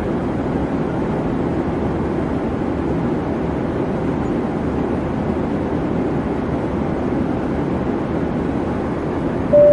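Steady engine-and-air drone inside an airliner cabin in flight. Near the end a single clear chime sounds, the start of a falling two-tone cabin chime.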